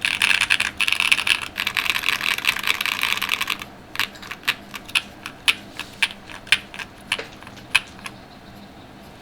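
Vega mechanical keyboard with Chosfox Hanami Dango linear switches, aluminium plate, full foam and GMK keycaps, being typed on. Fast continuous typing for about three and a half seconds, then separate keystrokes two or three a second, stopping about eight seconds in.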